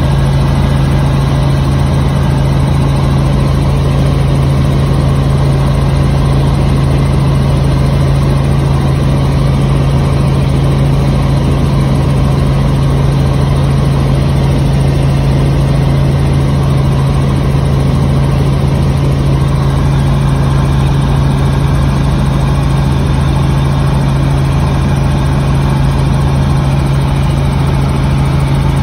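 Robinson R44 Raven II helicopter in flight, heard from inside the cabin: the steady drone of its Lycoming six-cylinder engine and rotors, with a strong low hum and a rushing noise over it that never changes.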